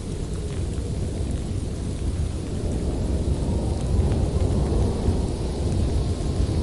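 Low, continuous rumble of thunder over steady rain, swelling slightly about two-thirds of the way through.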